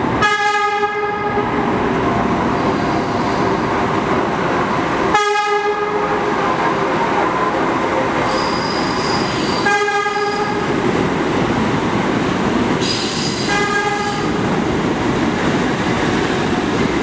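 New York City subway train rumbling through an underground station, sounding its horn in short blasts four times, about five seconds apart at first.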